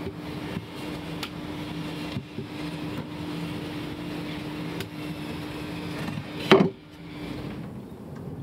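Old wooden scythe-nib pieces and their iron nib-irons being handled and set down on a wooden bench: scattered light knocks and clacks, with one loud knock about six and a half seconds in. A steady low hum runs underneath and stops near the end.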